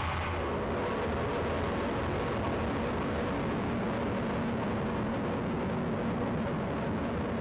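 A steady, dense wall of rumbling noise from an experimental cassette track: a low hum with faint held tones above it. The upper hiss thins out in the first second.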